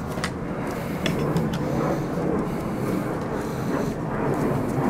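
A steady mechanical background hum, with a few faint light ticks and rustles from paracord being knotted by hand.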